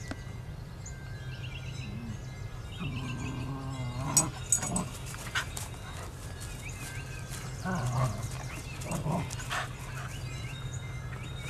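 Two dogs, a giant schnauzer and a Jack Russell terrier, vocalizing in rough play: short growls and whines at several points, with a few sharp clicks around four to five seconds in.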